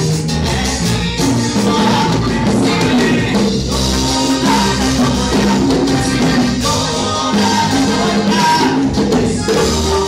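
Live Latin-style gospel band music over a PA: drum kit and congas keeping a steady beat under a bass line, with a male singer on microphone.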